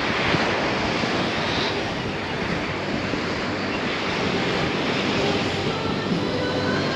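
Steady rush of waves and water, with wind buffeting the microphone.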